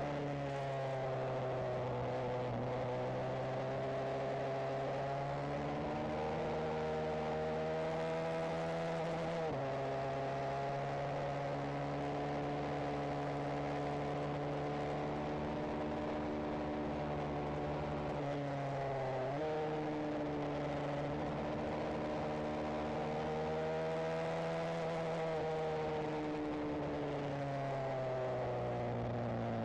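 Benelli TNT 125 single-cylinder motorcycle engine and exhaust running under way, heard from onboard. The engine note holds steady, then dips sharply about ten seconds in and again about twenty seconds in before settling.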